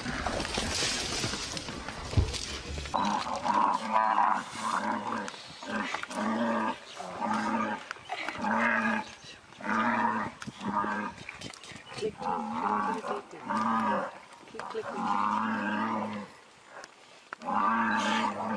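A buffalo bawling over and over in distress while a lion attacks, the calls coming about once a second with a short pause near the end. Before the calls start there are a few seconds of rushing noise with a low thump.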